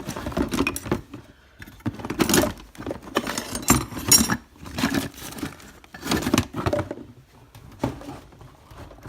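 Metal objects and tools clinking and clattering as they are picked up, moved and set down, in a run of irregular knocks and rattles.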